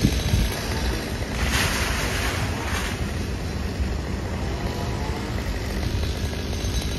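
Chainsaw running high up in a tree, heard from the ground with wind rumbling on the microphone; a louder hiss rises about a second and a half in and lasts about a second and a half.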